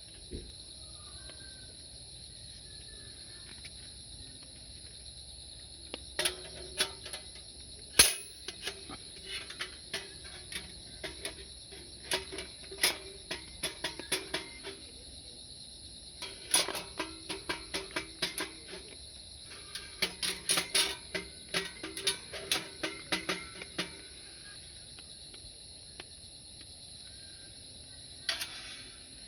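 Steady, high insect chirring in two thin bands. From about six seconds in it is broken by runs of quick clicks and light knocks, the loudest a sharp knock about eight seconds in. The clicks come in bursts until near the end, with one more short cluster just before it.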